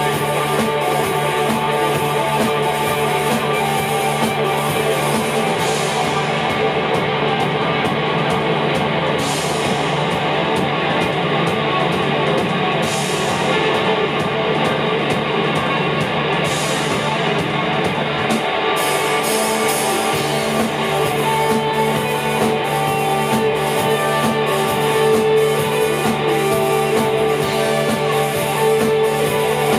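Live instrumental rock from two electric guitars, Stratocaster- and Telecaster-style, over a Pearl drum kit, loud and dense. The steady cymbal beat drops back for about a dozen seconds in the middle, leaving the guitars ringing with only a few cymbal hits, then returns.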